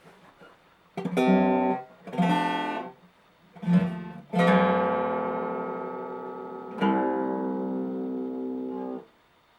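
Acoustic guitar strumming chords: three short strums in the first four seconds, then two chords left ringing for a couple of seconds each, the last one cut off suddenly near the end.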